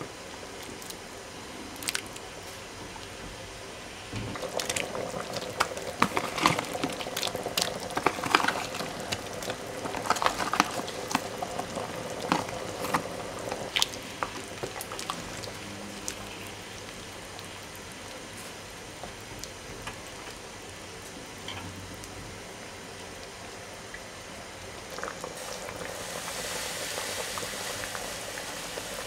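A pan of spiced goat soup boiling, a steady bubbling hiss. From about four to fourteen seconds in there is a run of sharp pops and clicks as it is stirred with a spoon. It then settles to a steadier simmer and grows to a louder hiss near the end.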